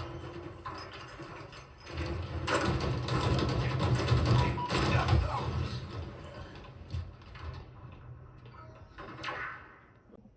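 Soundtrack sound effects of mechanical clanking and ratcheting over a low rumble. They are loudest in the middle stretch and die away near the end.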